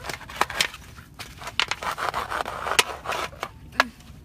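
Large knife scraping and cutting a fish on a corrugated metal sheet, with irregular sharp clicks and taps of the blade against the metal and a rough scraping stretch in the middle.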